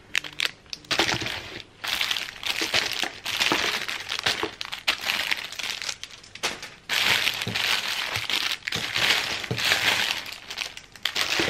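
Clear cellophane bags crinkling and crackling as a hand handles and rummages through a box full of individually bagged squishy toys, in irregular bursts with a short lull about two thirds of the way through.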